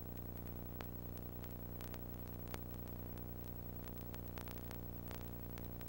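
Steady low hum with a faint hiss and scattered soft clicks: the background noise of the recording, with no programme sound.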